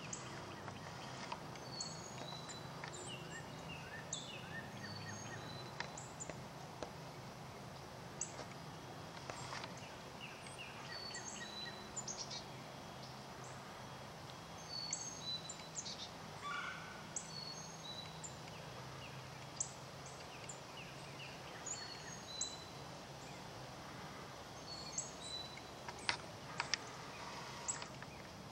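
Rural outdoor ambience: small birds chirping and calling with many short, high notes, some sliding down in pitch, over a steady low hum, with a few sharp clicks near the end.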